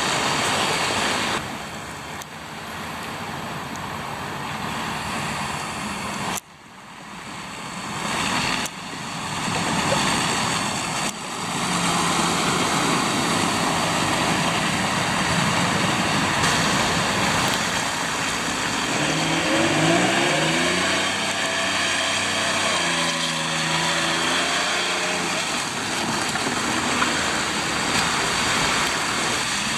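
Road traffic on a slushy street: trucks, vans and cars driving past, with tyre hiss through wet snow. About two thirds of the way in, a truck engine is heard accelerating, its pitch rising and stepping between gears.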